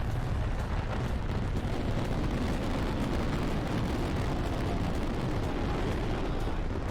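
A firework barrage of over 9,000 shells going off at once: a dense, unbroken rumble of launches and bursts that holds steady with no pause.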